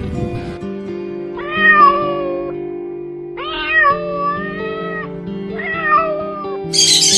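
A cat meowing three times, the middle meow the longest, over background music. A burst of hissy noise starts near the end.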